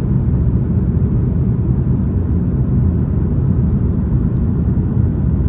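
Steady low rumble of an Airbus A330-200 in flight, engine and airflow noise heard from inside the cabin, with a few faint clicks.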